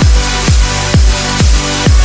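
Electronic dance music with a steady kick drum about twice a second under held synth chords.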